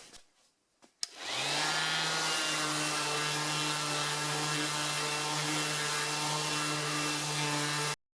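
Electric sander with 120-grit paper spinning up about a second in and running steadily while sanding the surface of a painted oak sign, then cutting off suddenly near the end.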